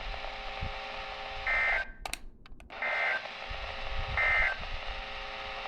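Emergency Alert System SAME end-of-message data bursts over a weather-alert radio broadcast: three short, identical buzzy bursts about 1.3 s apart, marking the end of the warning message. The audio drops out briefly with a few clicks between the first and second bursts.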